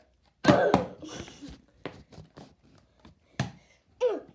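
Short knocks, taps and scuffs of props being handled by hand, with the loudest clatter about half a second in and another sharp tap near the end, as a plastic kids' cup is set down.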